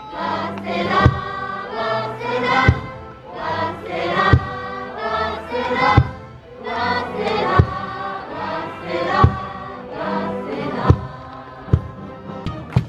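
A cheering section of students sings a cheer song in unison with a brass band, punctuated by a big drum struck about every second and a half. Near the end the singing stops and the drum strikes come quicker.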